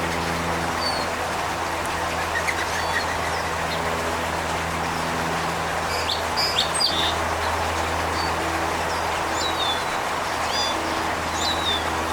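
Small birds chirping: scattered short, high chirps with a brief trill about two seconds in, a cluster around the middle, and several down-slurred notes near the end, over a steady low hum.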